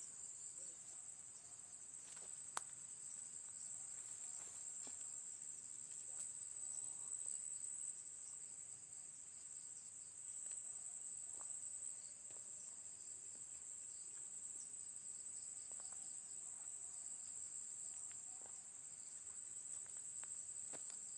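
A steady, high-pitched chorus of crickets chirring, with a faint sharp click a few seconds in.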